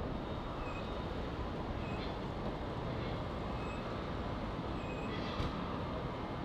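Jet airliner engines running with a steady, even rumble.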